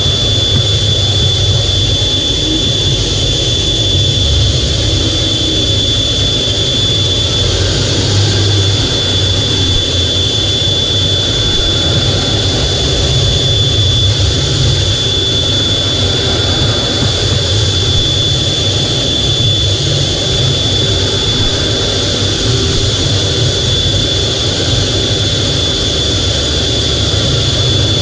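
F/A-18's jet engines running steadily, heard from inside the cockpit: a deep continuous rumble with a thin, steady high whine above it.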